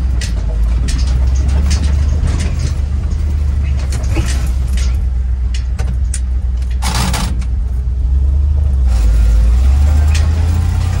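Ford F600 truck's engine running, heard from inside the cab: a steady low rumble with scattered rattles and clicks. About seven seconds in there is a short loud rush of noise, and a steady hiss near the end.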